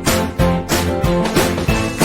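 Upbeat background music with a steady beat and guitar.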